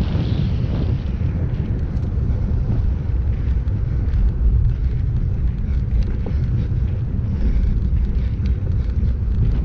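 Heavy wind buffeting the microphone of a handlebar-mounted action camera while riding: a steady low rumble with no engine tone, and a few faint ticks above it.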